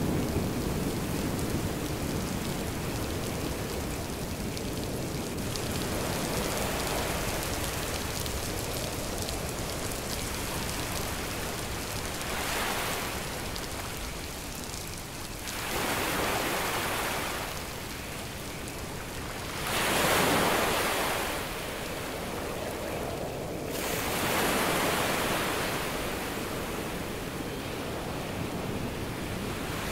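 Steady rushing noise of rain and surf, with four louder swells of about two seconds each in the second half, the strongest about two-thirds of the way through.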